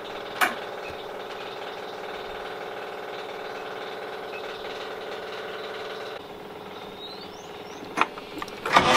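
A steady mechanical hum with a couple of sharp clicks as the ignition key is found. Near the end the sailboat's inboard engine starts up loudly, much louder than the hum.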